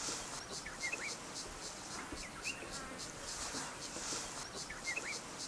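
Bushveld ambience: a steady, pulsing insect chorus, with a bird's short whistled call repeating about every second and a half.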